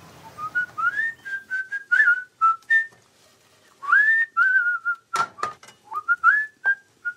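A person whistling a tune in clear single notes with rising slides, in two phrases with a short pause about three seconds in. A few sharp clicks or knocks fall among the notes, the loudest about five seconds in.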